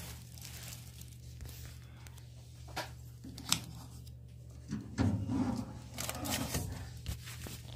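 Handling noise from a new mini oven and its plastic wrapping: two sharp clicks, then knocks and rustling as the oven's glass door is lowered open, over a steady low hum.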